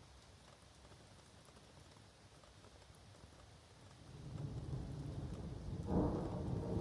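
Light rain pattering and dripping in woodland, then a roll of thunder about four seconds in. The rumble builds and is loudest just before the end.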